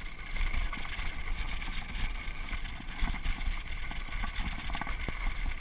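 Mountain bike riding fast downhill on a dirt singletrack: wind rumbling on the camera microphone, with tyres rolling over dirt and many small rattles and clicks from the bike over bumps.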